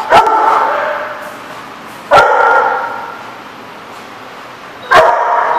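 Dog barking during rough play: three loud barks about two and a half seconds apart, each ringing on briefly in the echoing hard-walled room.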